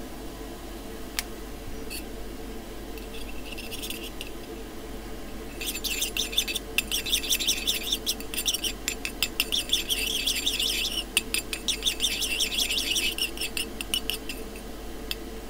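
Metal stirring rod scraping and clicking against a small metal cup while stirring model paint. The quick scratchy ticks start about six seconds in and go on for about nine seconds, over a steady low hum.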